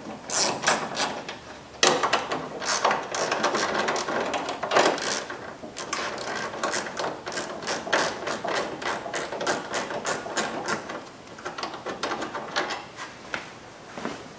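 Ratchet with a 10 mm socket and extension clicking in quick runs as the bolts on top of the headlight assembly are turned out. The clicking stops near the end.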